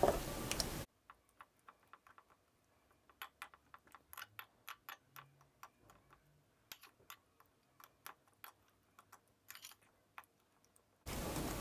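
Metal fork tapping and scraping against a small glass bowl while mashing blueberries: faint, irregular clicks and taps, with a few quick clusters.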